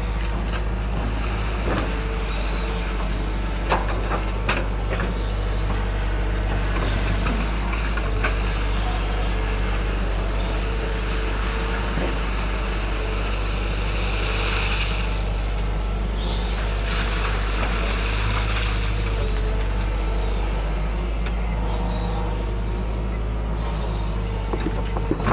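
Hydraulic excavator's diesel engine running steadily at working revs, with two spells of hissing about halfway through and a few short knocks in the first few seconds.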